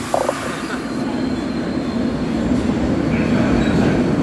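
MBTA Red Line subway train running along the platform: a loud rumble that builds toward the end, with a faint steady high whine.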